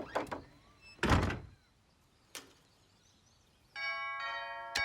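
A door thuds shut about a second in, after a couple of lighter knocks. Near the end a doorbell chime starts ringing and holds on.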